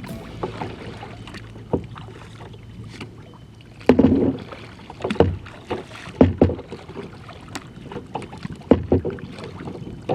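Kayak paddle strokes: the blades dipping and splashing in the water with occasional knocks against the hull, coming at uneven intervals, most strongly in the second half.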